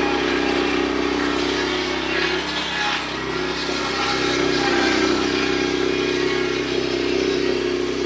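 Woodmizer LX25 portable sawmill's engine running at a steady speed, dipping slightly in level about two to three seconds in.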